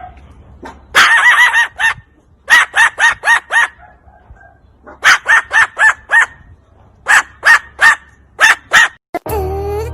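A parrot giving short, loud, repeated calls in quick runs of two to six, with short pauses between the runs. Music comes in near the end.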